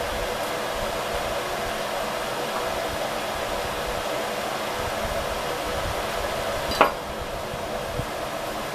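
A steady mechanical hum like a running fan, with a single sharp knock about seven seconds in and a fainter tap about a second later.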